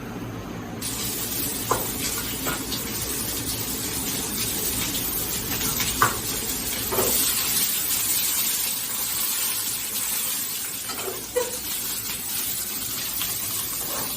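Pickled cabbage and egg sizzling in a hot pan as it is stir-fried, the sizzle rising suddenly about a second in. A few sharp clicks of the spatula against the pan.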